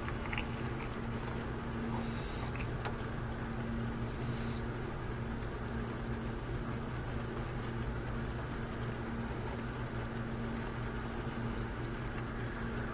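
Western burrowing owl chick giving two short, high-pitched calls, about two and four seconds in, over a steady low hum.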